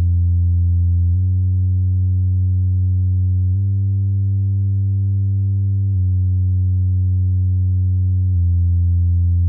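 Steady low bass test tone for a sound-system bass check, held continuously and stepping slightly in pitch every couple of seconds.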